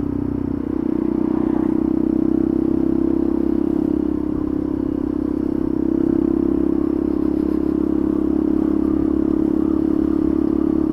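Motorcycle engine running steadily while riding at town speed, a continuous drone that swells slightly a couple of times with the throttle.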